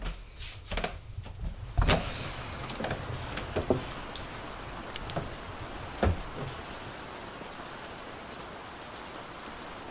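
A door latch clicks and a wooden door opens about two seconds in, then a steady rain hiss fills the background, broken by a few light knocks.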